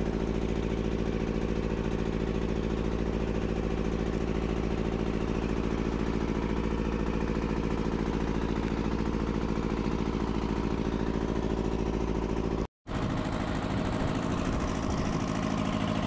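Fishing boat's inboard engine running at a steady speed. The sound cuts out for a moment about three-quarters of the way through, then the engine carries on.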